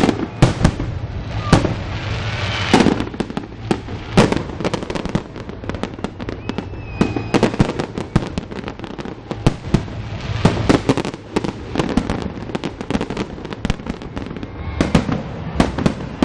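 Fireworks display: shells bursting one after another in sharp bangs and crackles, coming thickest about ten seconds in and again near the end.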